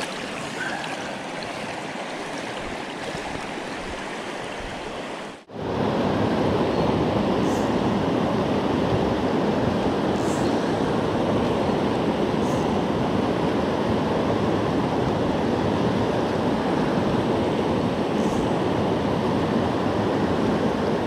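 River rapids rushing steadily. The water sound drops out briefly about five seconds in, then comes back louder and fuller.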